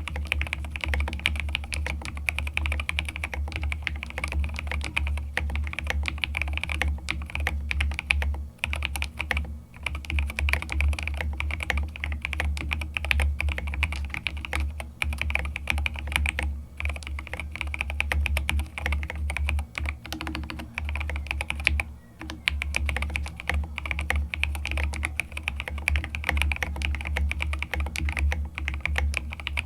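Continuous fast typing on a mechanical keyboard with Lavender linear switches and tall SA-profile keycaps, a dense run of deep, thocky keystrokes with a couple of brief pauses.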